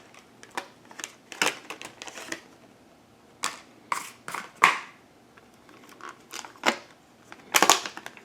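Plastic packaging and cables being handled during unboxing: irregular clicks, knocks and short crinkling rustles with brief pauses between them.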